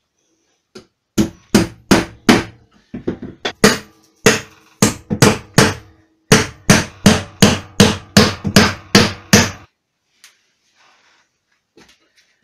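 Hammer driving nails into a pine bench frame: a long series of sharp blows, about three a second, with a ringing note under them. The blows stop near the end.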